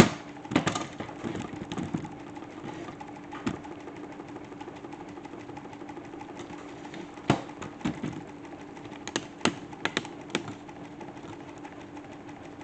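Salad spinner converted into a toy washing machine, running with a steady hum and scattered sharp knocks, several of them close together about two thirds of the way through.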